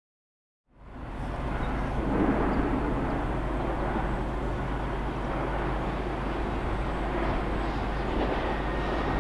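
Distant diesel engine drone of a railway track machine approaching along the line: a steady low hum under a broad rushing noise, starting suddenly about a second in.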